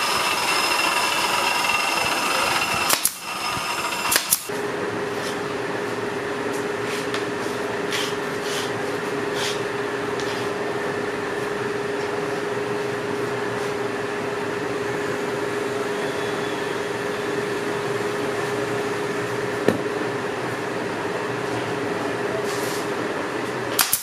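Pneumatic brad nailer firing sharp shots into wood, twice about three and four seconds in and again at the very end, with fainter ticks in between, over a steady machine hum.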